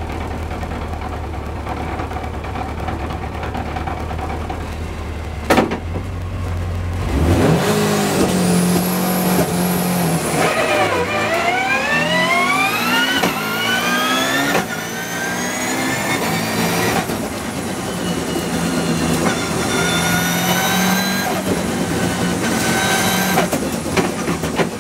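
Turbocharged hillclimb car's engine heard from inside the cabin: a low steady rumble while it waits at the start, with one sharp click about five and a half seconds in. About seven seconds in it launches, then accelerates hard up through the gears, the pitch climbing and dropping back at each of several gear changes.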